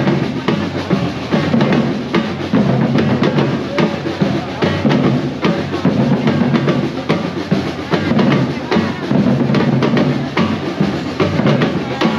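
Drum-driven music with a steady beat, bass drum and snare drum to the fore.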